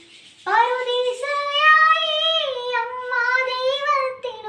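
A young girl singing solo and unaccompanied in long held, slightly wavering notes. She takes a quick breath about half a second in, before the phrase begins.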